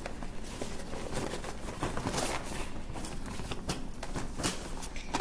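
Gift bag and its wrapping rustling and crinkling as they are handled and opened, in irregular short bursts.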